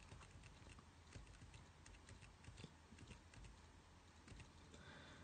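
Faint, irregular clicking and tapping on a laptop while slides are paged through, over near-silent room tone.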